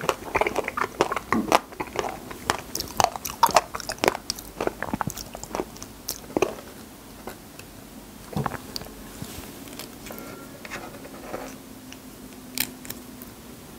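Close-miked chewing and biting of wild raspberries: a quick run of small mouth clicks that thins out about halfway through.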